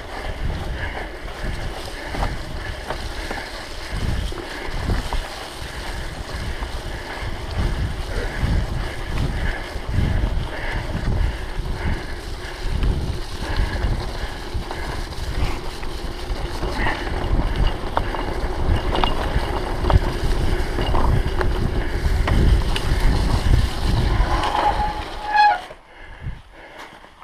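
Wind buffeting the microphone and tyres rumbling over a dirt trail as a mountain bike rides along at speed, in uneven low gusts; it turns much quieter near the end.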